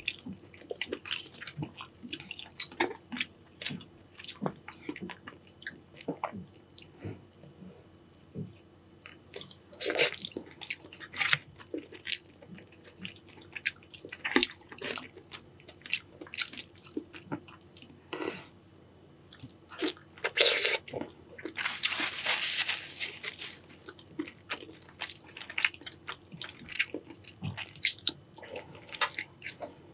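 Close-miked eating of a saucy seafood boil: chewing, biting and wet mouth clicks in irregular bursts with short pauses, and a louder hissing noise lasting a second or two about twenty-two seconds in.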